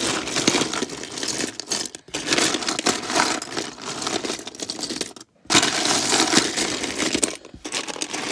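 Loose plastic Lego pieces and minifigures clattering and rattling as a hand rummages through a box full of them, in three stretches with brief pauses about two and five seconds in.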